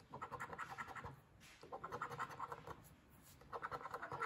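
A coin scratching the coating off a paper scratch-off lottery ticket, in three short bursts of quick rubbing strokes.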